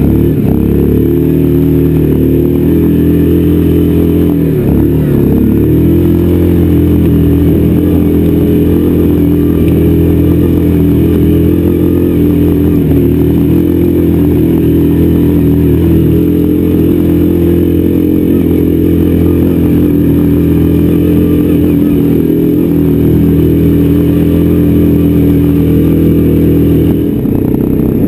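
Yamaha Grizzly 700 ATV's single-cylinder engine pulling steadily up a rocky hill climb, its pitch dipping briefly near the start and again about five seconds in as the throttle eases and opens.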